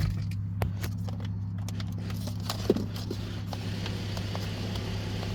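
Scattered small plastic clicks and knocks, most of them in the first second and a half, as the shifter surround trim is worked loose from the center console, over a steady low hum.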